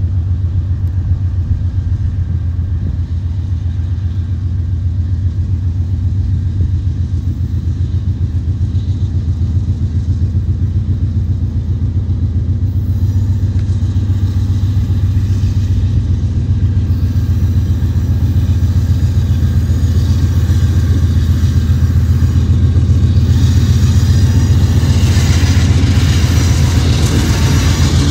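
Freight train's diesel locomotive engine running with a steady low rumble, growing louder as the train approaches. Wheel-and-rail noise builds in over the second half and is strongest near the end.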